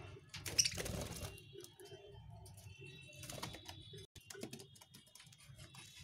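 Caged budgerigars chattering: a dense run of quick clicks and short high chirps, with a louder burst about a second in.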